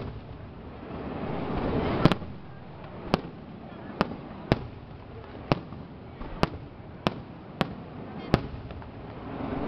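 Aerial firework shells bursting overhead: a run of about ten sharp bangs spaced roughly half a second to a second apart, the loudest about two seconds in.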